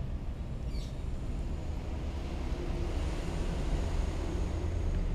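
Steady low rumble of background noise, with one brief faint high sound a little under a second in.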